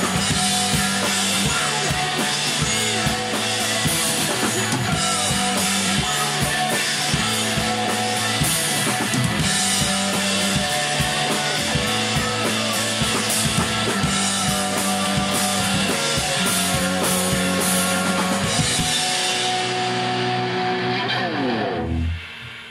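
Rock band playing live: a drum kit (Mapex Saturn drums, Ludwig Supraphonic snare, Zildjian cymbals) driving steadily under electric guitars and bass. Near the end the cymbals and drums fall away, the guitars ring on briefly, and the music stops.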